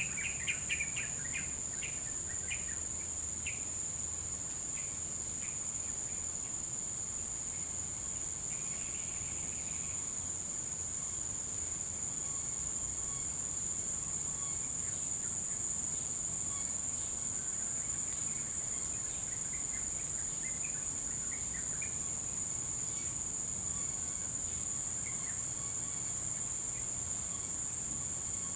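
Tropical bush ambience: a steady, high-pitched drone of insects, with short bird chirps in the first few seconds and again later on. Underneath is a faint low rumble of distant traffic.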